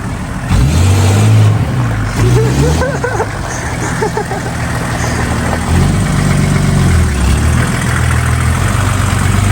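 Car engine running at low revs, its pitch rising and falling several times as the throttle is pressed and eased off while the car moves slowly.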